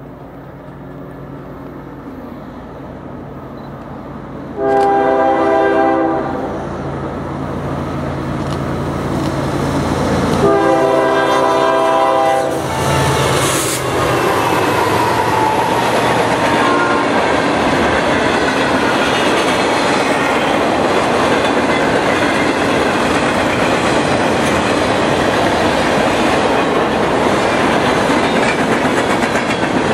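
A freight train's diesel locomotives approach and pass, sounding two horn blasts, the first about five seconds in and the second, longer one about ten seconds in. After that a long freight train rolls by with a steady rumble and clatter of wheels on rail.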